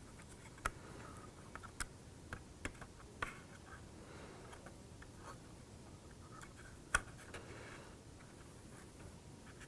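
Faint, irregular light clicks and taps from handling small laser-cut kit pieces and glue, the sharpest about a second in and again near seven seconds.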